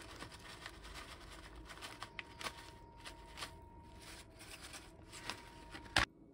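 Plastic pouch of seasoned laver flakes crinkling and rustling as the flakes are shaken out onto noodles, with scattered light ticks and a sharper click near the end.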